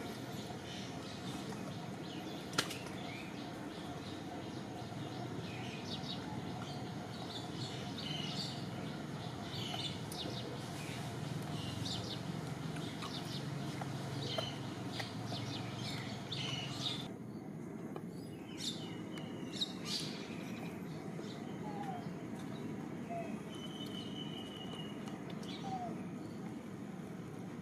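Outdoor background noise: a steady low hum with many short, high chirps scattered throughout, and a few sharp clicks, the loudest about two and a half seconds in.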